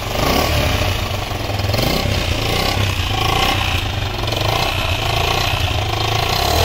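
Bera Kavak 150 cc single-cylinder motorcycle engine running at idle just after an electric start, its note rising and falling slightly a few times.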